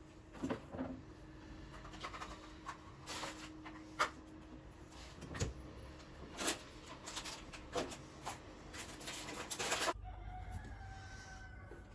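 Kitchen handling sounds: a scattered series of light clicks, knocks and rustles as containers and food items are picked up and set down while the refrigerator is organised. About ten seconds in these stop abruptly, leaving a quieter stretch with a faint drawn-out pitched call.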